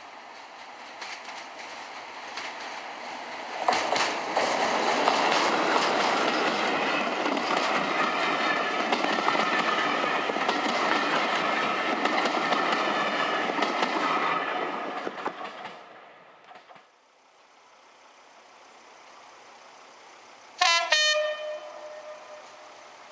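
A Class 33 diesel locomotive approaches and runs past close by with its engine working, followed by its passenger coaches rolling past with a steady clickety-clack over the rail joints that fades away after about fifteen seconds. Near the end a distant diesel locomotive sounds one short horn blast.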